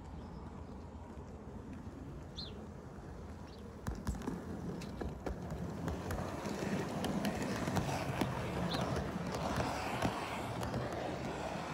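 OO gauge model locomotive and coaches running along the track past the camera, a rough clattering rumble with many small clicks from the wheels over the rail joints, getting louder about four seconds in as the train comes closer.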